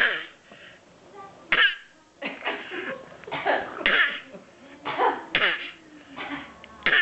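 A baby giving a string of short coughs, about eight of them spaced irregularly. These are deliberate coughs, a trick she has just learned and keeps repeating.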